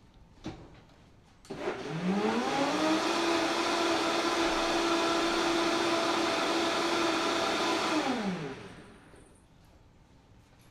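Blender motor starting up with a rising pitch, running steadily for about five seconds while blending a sauce, then winding down with a falling pitch.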